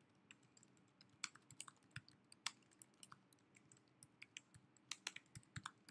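Faint typing on a computer keyboard: a run of irregular key clicks, bunched into quick flurries.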